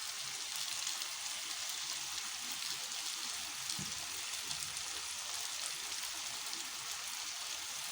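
Liver and onions frying in a hot pan, a steady sizzle.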